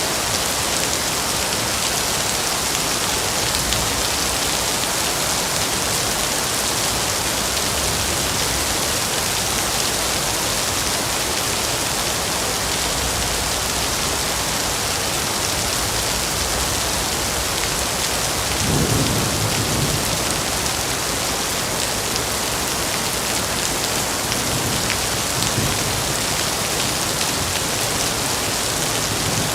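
Steady, even hiss of heavy rain falling in a forest, with a low rumble of distant thunder about two-thirds of the way through and fainter rumbles after it.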